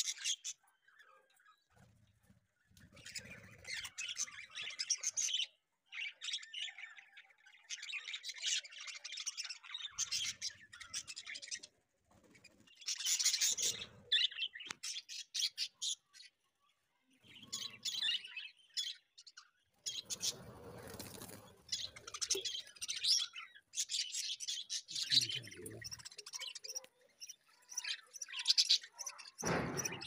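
A flock of budgerigars chirping and chattering in bursts of a second or two, with short pauses between them.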